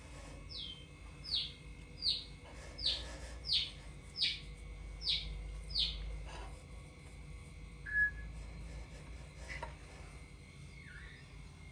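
Bird chirping: a run of about nine quick falling chirps in quick succession, then a short single note and one softer call.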